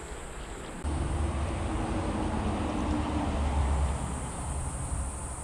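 Low rumble of road traffic, a passing vehicle with a faint engine hum. It starts suddenly about a second in and eases off near the end.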